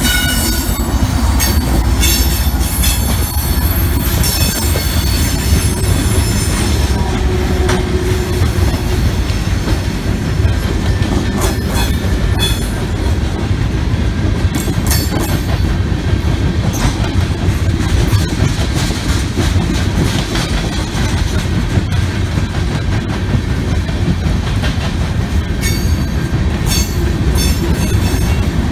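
A freight train rolling past: a steady heavy rumble of railcars with clacking from the wheels on the rails. High-pitched wheel squeal runs through the first several seconds, as the locomotives clear.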